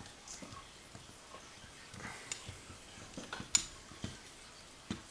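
Scattered small clicks and taps of metal lock parts and tools being handled, the sharpest one a little past halfway.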